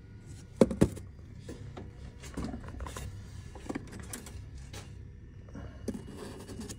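Loose steel knife blade blanks clinking and scraping against each other as one is picked out of a box full of them. Two sharp clinks a little over half a second in are the loudest, followed by scattered lighter knocks.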